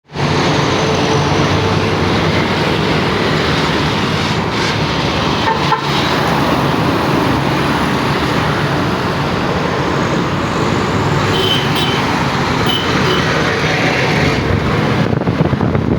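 Hyundai mini tiller's small engine running steadily.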